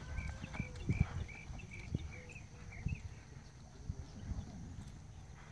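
Horse's hooves striking soft arena dirt at a gallop through the poles: irregular dull thuds. A run of short, evenly pitched high chirps sounds over the first three seconds.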